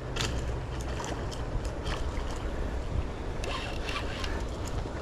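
Steady low wind rumble on the microphone, with scattered light clicks and rattles of fishing tackle being handled while a lure is freed from another angler's line.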